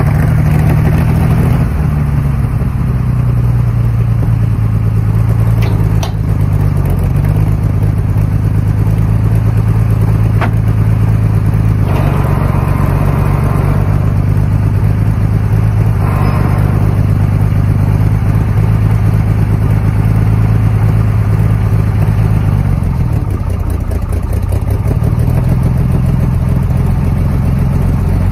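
1956 International R200 wrecker's six-cylinder engine, with true dual exhaust, running steadily under the load of a towed truck. A few brief knocks come in the first half, and about three-quarters of the way through the revs drop briefly and come back up.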